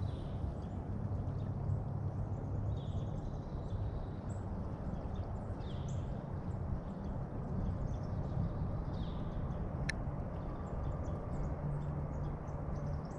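Steady low rushing of river water and wind, with several faint short bird chirps and a single sharp click about ten seconds in.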